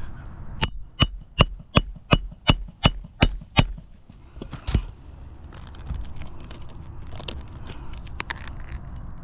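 A quick run of nine sharp, evenly spaced taps with a slight metallic ring, about three a second, then one more tap a second later. Faint scraping and a few light ticks follow.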